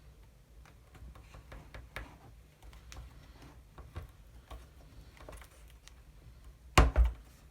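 Light clicks and taps of small hand tools working on a wooden ship model while holes are punched for pins, with two louder knocks close together near the end.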